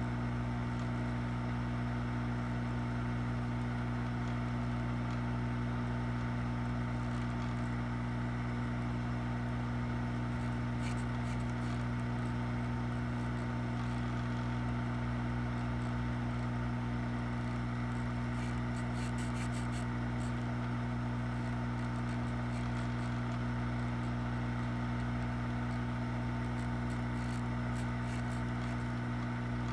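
Hot air rework station blowing at maximum air flow: a steady blower hum with an even rush of air, heating a USB port's solder joints to desolder it from a laptop board.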